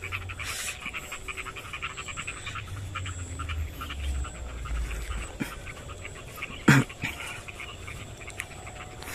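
Rapid, heavy panting breaths from someone hurrying on foot, with wind rumbling on the microphone for roughly the first half. A brief louder sound cuts in about two-thirds of the way through.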